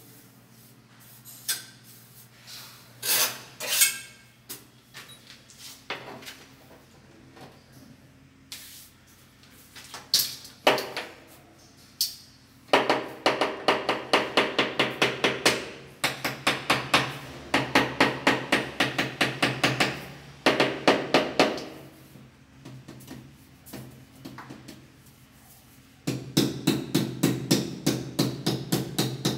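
Rubber mallet tapping a wall tile at the back of a shower niche to seat it, in quick runs of light, slightly ringing knocks, several a second. Before the runs there are only a few scattered single knocks.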